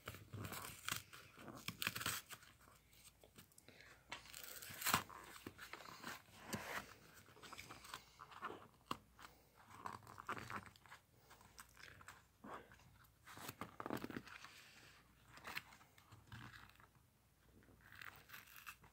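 Plastic blister and cardboard backing of a marker package being worked open by hand: faint, irregular crinkling, crackling and small tearing sounds.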